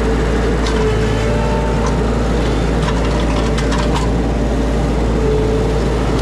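Mini skid steer's engine running steadily at working speed, with a few light clanks.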